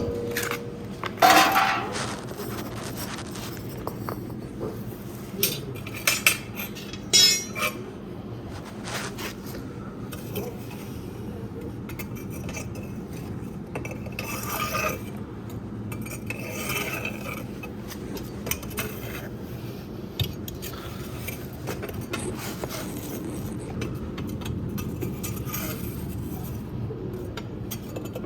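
Metal tool clinking and scraping inside a homemade fireplace as wood ash is cleaned out: a few sharp metallic clinks in the first several seconds, the loudest about a second in, then continuous scraping and shuffling.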